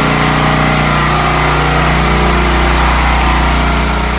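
Champion 9000/7000-watt portable generator engine running steadily under load, powering a 3.5-ton central air conditioner and the house.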